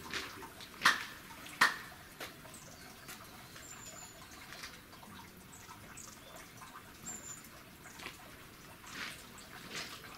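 Two sharp hand claps about two thirds of a second apart, the two claps of a worshipper praying at a Shinto shrine. Faint ticks and two short high bird chirps follow.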